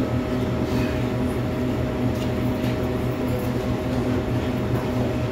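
Steady machine hum holding a constant pitch, with a few faint light clicks over it.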